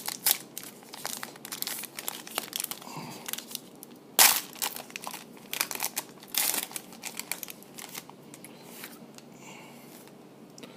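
A trading-card pack wrapper being torn open and crinkled, with irregular crackles and the loudest crackle about four seconds in.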